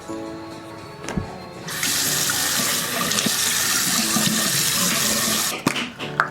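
Water tap running into a sink. It comes on suddenly a couple of seconds in, runs steadily for about four seconds, then is shut off near the end. Soft background music plays underneath.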